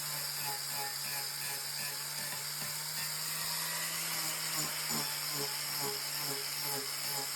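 Electric grinder fitted with a wood-cutting bit, running steadily as it cuts a wooden railing runner down to size.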